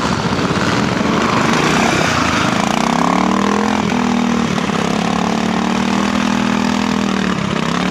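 Classic trials motorcycle engine running. Its note settles about two and a half seconds in and holds steady for several seconds until near the end.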